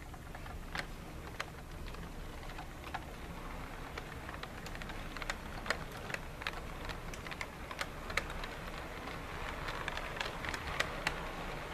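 HO-scale model passenger cars rolling past on the track, their wheels making small irregular clicks that come more often and louder in the second half, over a low steady hum.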